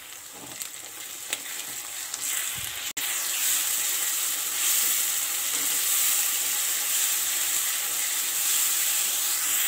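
Ginger-garlic paste frying in hot oil with chopped onions, green chillies and curry leaves, sizzling steadily as it is stirred around the pan. After a brief break about three seconds in, the sizzle is louder.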